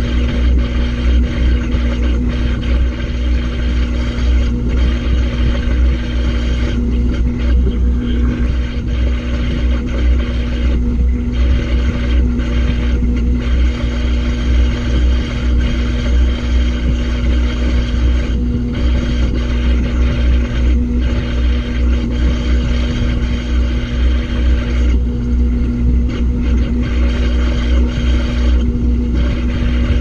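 Washing machine in its spin cycle, heard from inside the drum among the clothes: a steady motor hum with a low rumble, unbroken and at an even speed.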